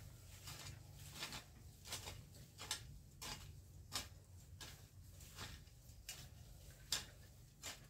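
A hand tool striking in a steady rhythm, about eleven short, sharp strokes roughly 0.7 s apart, as it chops at a lemongrass clump.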